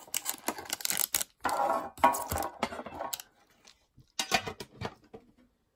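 Plastic wrapping crinkling and rustling as a foil card pack is unwrapped and lifted out of its metal tin. The crackle runs in quick bursts for about three seconds, comes again briefly a little after four seconds, then stops.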